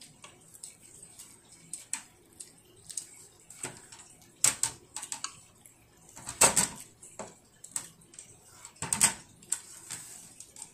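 Chopsticks tapping and scraping on a child's plate in irregular clicks, with a few louder knocks about halfway through and near the end.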